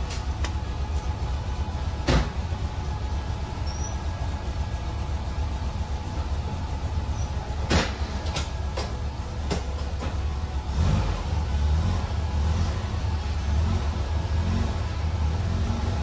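1964 Volkswagen bus's air-cooled flat-four engine running with a steady low rumble, with several sharp knocks during the first ten seconds. About eleven seconds in, the engine note begins rising and falling, as under throttle.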